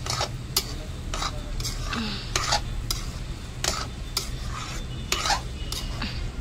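Metal spoon stirring and scraping mashed-potato halwa around a metal kadhai, in sharp scrapes about twice a second, with a low sizzle of the ghee frying underneath.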